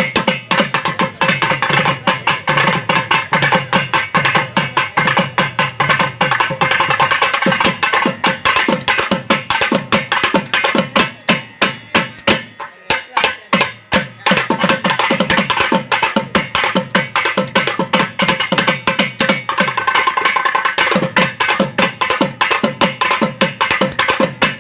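A folk band playing: two shehnai-style reed pipes carry a melody over fast, dense drumming on a stick-beaten drum and a barrel drum. The pipes drop out briefly about halfway, leaving the drums alone, then come back in.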